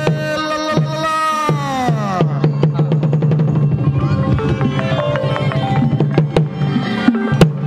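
Khmer pinpeat ensemble playing: a long held melodic line that slides down about two seconds in gives way to quick struck notes over a steady drum beat.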